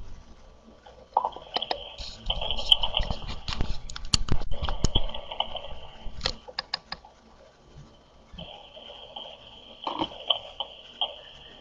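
Irregular clicks and taps of typing on a computer keyboard, in two bouts with a pause of about a second and a half in the middle.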